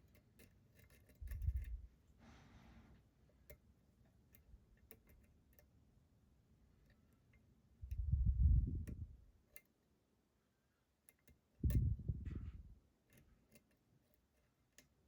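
Light, scattered metallic ticks of a hook pick setting pins in a pin-tumbler challenge lock under tension, with the core shifting slightly. Three dull low thumps from handling the lock stand out, the loudest about 8 seconds in.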